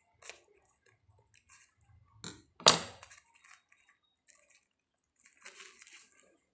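Faint clicks and paper rustling as scissors work a metal staple out of a tea bag, with one sharp click a little under three seconds in and more rustling near the end.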